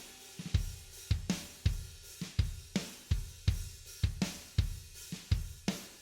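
Background music: a drum beat with kick drum, snare and hi-hat at a steady, fairly quick tempo, about two hits a second.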